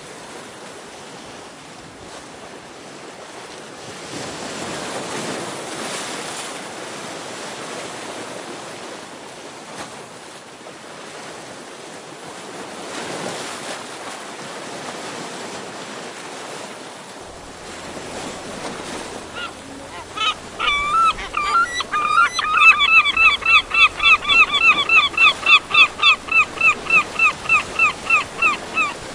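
Waves breaking and washing against a rocky shore. About twenty seconds in, a bird starts calling, a loud fast series of repeated calls, about four a second, that becomes the loudest sound.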